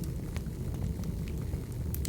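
Log fire burning: a steady low rumble with scattered crackles and pops, a sharp pop near the end.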